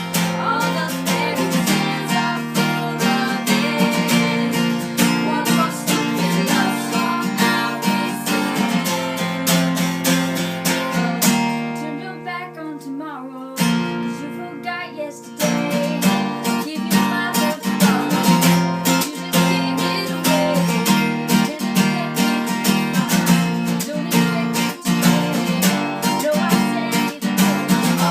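Strummed acoustic guitar music with a steady rhythm, thinning out briefly about halfway through before coming back in full.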